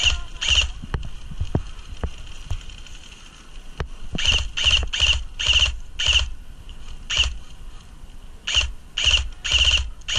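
An airsoft rifle firing short bursts in quick succession, each a brief buzzing rattle. Two bursts come at the start, then a pause of about three seconds with faint ticks, then about nine more bursts.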